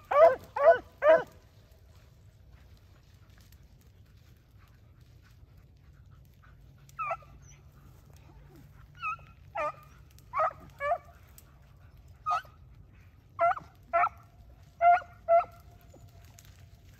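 Rabbit beagles baying on a rabbit's trail. A quick run of loud, close barks in the first second is followed, after a pause of several seconds, by scattered fainter barks, often in pairs.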